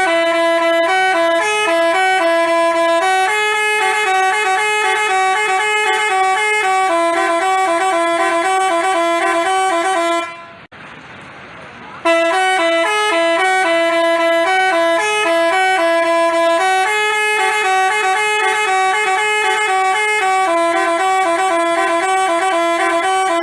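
Basuri telolet bus horn playing a tune of several notes in steady steps. It stops for a moment about ten seconds in, then plays the tune again.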